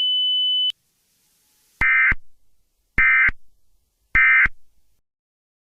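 Emergency Alert System end-of-message signal: a steady high tone cuts off under a second in, then three short bursts of SAME data tones about a second apart, each trailing off in an echo.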